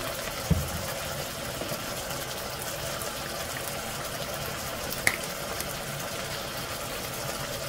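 Meatballs and vegetables frying in a pot, a steady sizzle, with a light knock about half a second in and a sharp click about five seconds in.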